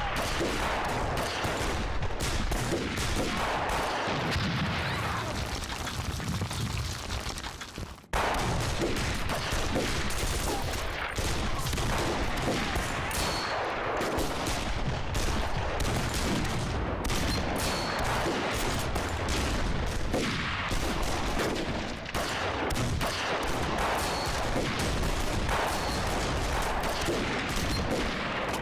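Heavy battle gunfire: many guns firing at once, shots coming thick and fast, with a brief fall-off nearly to quiet about eight seconds in before the firing resumes at once.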